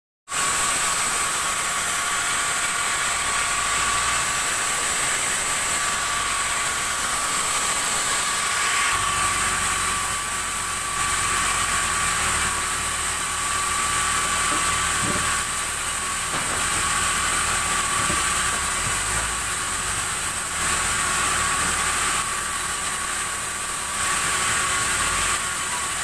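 Sawmill saw running steadily with a high, even whine, cutting black acacia logs.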